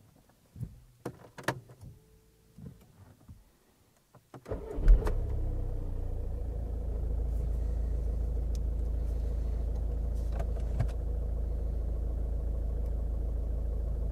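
A few clicks and knocks, then the Audi A3's engine starts with a sharp burst about four and a half seconds in and settles into a steady, even run.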